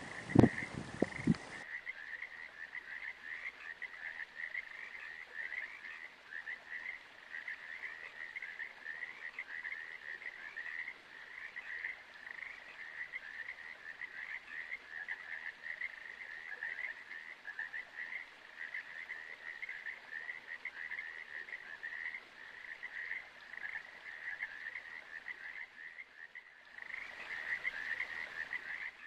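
A continuous chorus of animal calls: short calls repeated several times a second at one steady high pitch, with no let-up.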